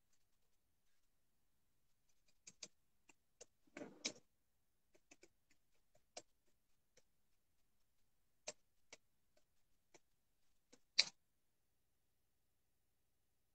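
Faint, irregular clicks and taps of handling, with a brief rustle about four seconds in and a sharper click near the end, as a phone is handled.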